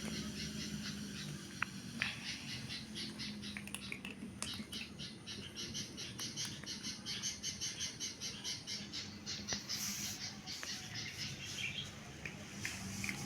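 A small bird chirping over and over, short high chirps several a second that start about two seconds in and stop near the end, over a low steady hum.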